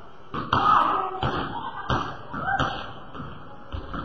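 Basketballs bouncing on a hardwood gym floor: a handful of separate thuds at uneven spacing.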